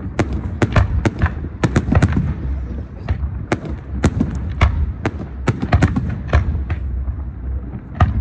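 Fireworks going off in rapid, irregular succession: sharp bangs about three a second, some overlapping and echoing, over a low rumble.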